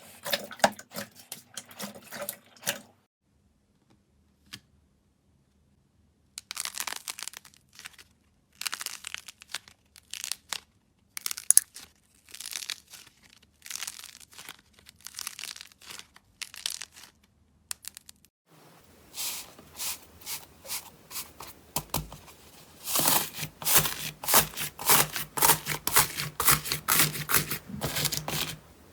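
Slime being squeezed and stretched by hand, giving runs of sharp crackling and popping clicks. The crackling stops for a few seconds near the start, comes back in separate bursts, and in the last third turns denser and louder.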